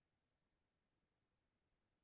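Near silence: a pause in a video-call recording with no audible sound.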